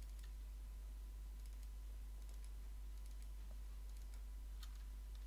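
Faint, irregular computer mouse and keyboard clicks, over a steady low electrical hum.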